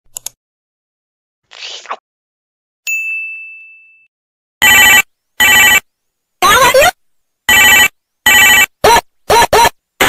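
Ringtone meme sound effect. It opens with two quick clicks, a short rustling burst and a single ding that rings out for about a second. From about halfway come roughly eight loud, chopped ringtone stabs in a stuttering rhythm, and the last few are shorter and slide in pitch.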